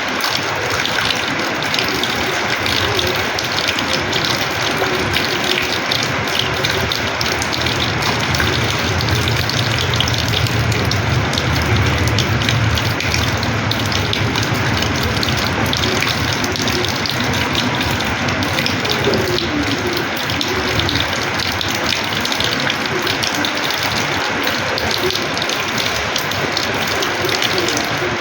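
Heavy rainwater pouring and splashing onto a house's terrace floor, a steady, dense wash of water noise without a break.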